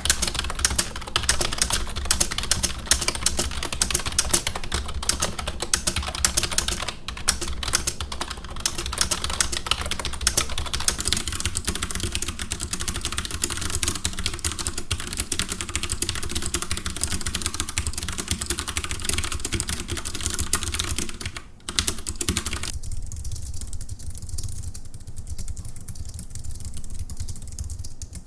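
Fast, continuous typing on a computer keyboard: a dense, unbroken stream of key clicks. About 23 seconds in the clatter changes character and sounds duller, with less of its middle range.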